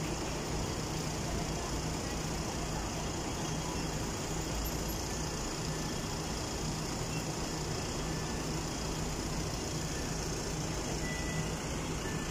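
Steady street traffic noise with a vehicle engine idling close by, heard as a low, steady hum.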